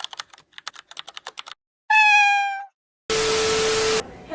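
A quick run of clicks like keyboard typing, then a single cat meow, then about a second of loud hiss with a steady beep in it that cuts off abruptly.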